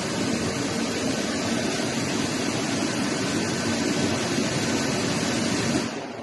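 Industrial machinery running: a steady mechanical noise with a low hum through it, which falls away abruptly near the end.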